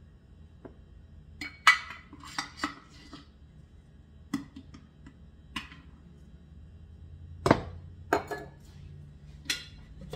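Metal measuring cup clinking and tapping against a container as flour is scooped and measured: a string of sharp clinks, the loudest about seven and a half seconds in.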